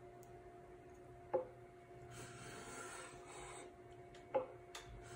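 Small brass hand plane taking a shaving along the edge of a hardwood seat: a sharp knock, then a scratchy stroke of about a second and a half, then another knock near the end as the next stroke begins.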